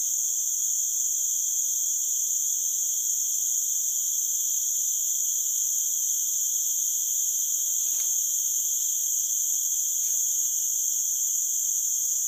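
Steady, shrill chorus of forest insects, an unbroken high-pitched drone with no pauses. A faint tick sounds about eight seconds in and another near ten seconds.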